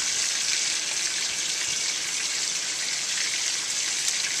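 Italian sausages frying in hot oil in a cast-iron skillet: a steady, even sizzle.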